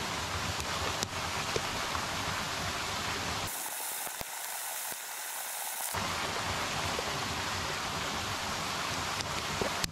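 Steady rushing of a waterfall. Between about 3.5 and 6 s the low rumble drops out and the rush sounds thinner, and a few light clicks sit on top.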